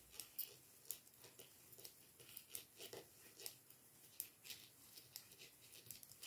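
Faint, irregular clicking and ticking of knitting needles as knit stitches are worked one after another.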